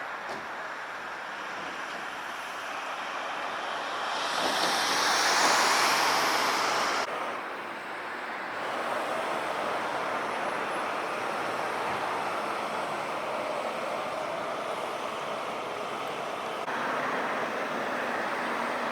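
Steady outdoor background noise, with a louder swell like a passing vehicle about four to seven seconds in that cuts off abruptly.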